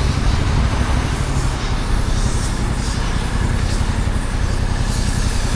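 Stock Yamaha XSR700's 689 cc parallel-twin engine running steadily on the move, a low, even rumble with road and wind noise over it.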